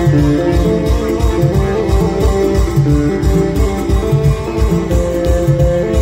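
Music with a fast, steady beat under a melody on a plucked string instrument.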